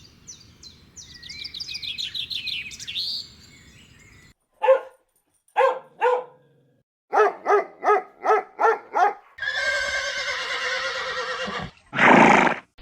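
A string of different animal calls cut one after another: a run of quick high chirps, then a series of short pitched barking calls, then a longer harsh call and a loud short cry near the end.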